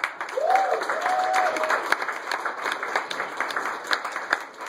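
Audience applauding a comedian onto the stage, with a brief whoop from one person about half a second in; the clapping thins out near the end.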